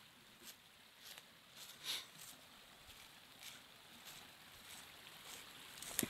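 Footsteps crunching through dry fallen leaves, a few irregular steps with the loudest about two seconds in, over a faint steady trickle of a small forest brook.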